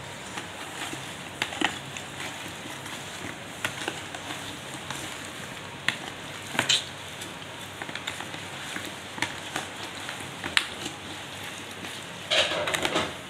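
Hand mixing of chopped raw mango pieces coated in chili powder, mustard powder and oil in a plastic tub, with a plastic-covered hand: a steady wet squishing and crackling with scattered sharp clicks.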